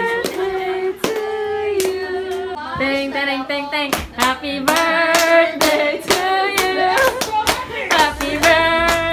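Singing with hand claps keeping a steady beat.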